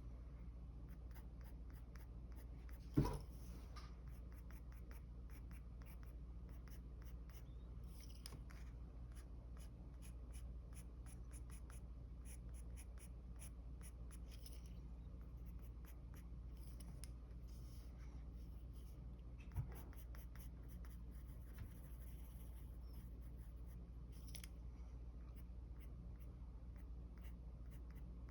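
Mechanical pencil sketching on paper: faint, quick scratchy strokes, with a sharp tap about three seconds in and a softer one near twenty seconds. A low steady hum underneath.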